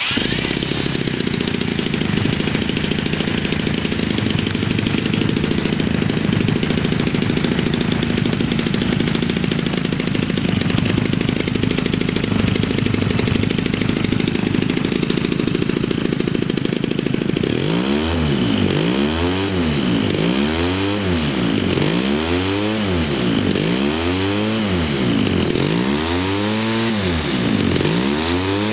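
US Engines 41cc two-stroke brush-cutter engine, converted for RC aircraft, catching right at the start and running steadily while swinging an 18x10 propeller. From about 17 seconds in, the sound wavers in a regular sweep about every second and a half.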